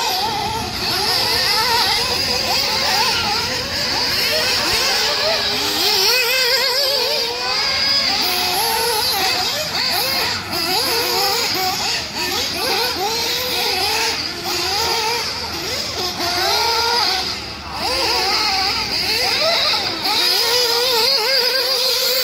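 Ported O.S. Speed Spec 2 nitro engine with a tuned pipe in a Mugen MBX7TR truggy, revving up and down again and again with the throttle as it laps. Its buzzing pitch climbs and falls every second or so.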